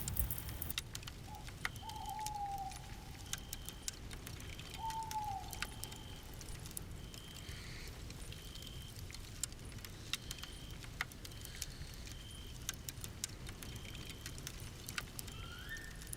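Campfire crackling, with scattered sharp pops and snaps. Behind it a short high note repeats about once a second, and a few short descending calls come in the first five seconds.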